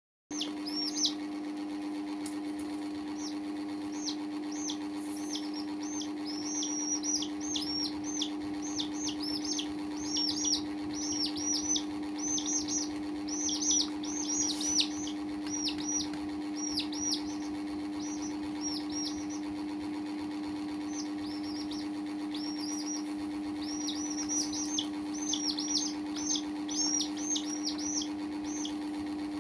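Baby chicks peeping: quick high chirps, each falling in pitch, coming in busy runs with short lulls, over a steady low hum.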